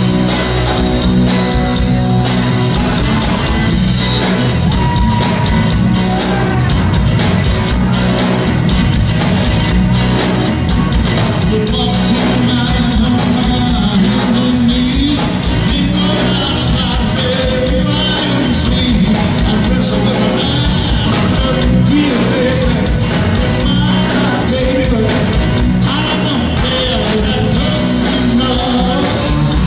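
A live blues-rock band with electric guitars, bass and drum kit plays while a male vocalist sings into the microphone, loud and steady.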